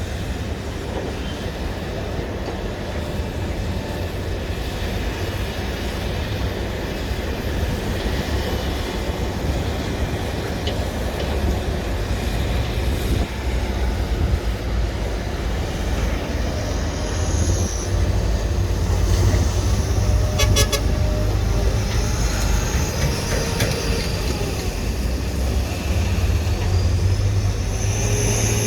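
SANY excavator's diesel engine running steadily under load as it digs, with occasional whining tones from the hydraulics and a quick run of clicks about two-thirds of the way through.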